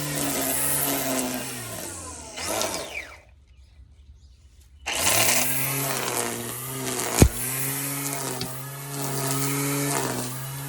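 Electric trimmer-edger motor running with a whine that wavers under load, spinning down to a stop about two seconds in, then restarted about five seconds in and running on. A single sharp knock, the loudest sound, comes near the middle.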